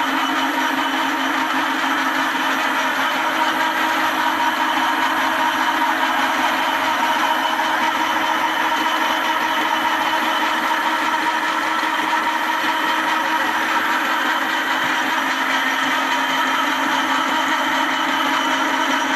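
Vintage lathe running at a steady speed, a continuous mechanical hum and whine with no change in pace.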